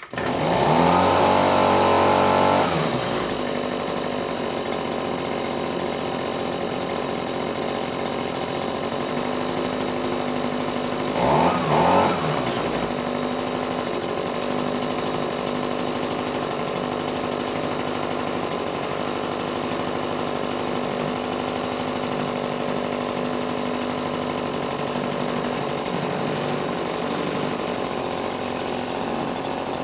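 Echo two-stroke leaf blower engine catching on half choke and running fast for about two and a half seconds, then dropping to a steady idle. It is revved up once and back down about eleven seconds in.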